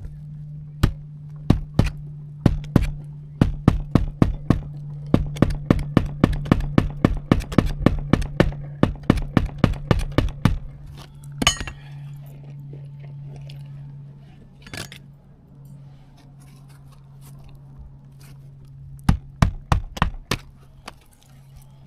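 Nails being driven into roof shingles: a quick, even run of sharp strikes, two or three a second, that stops about ten seconds in, then a few single strikes and another short burst near the end. A steady low hum runs under them and stops just before the end.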